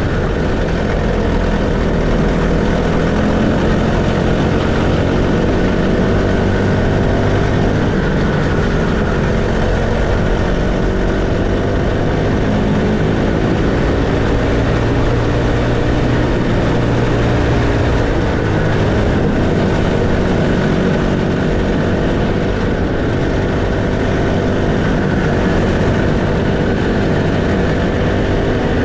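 Honda GXH50 single-cylinder four-stroke kart engine running hard at racing speed, heard up close on board the kart. Its pitch rises and falls as the kart accelerates and backs off through the corners.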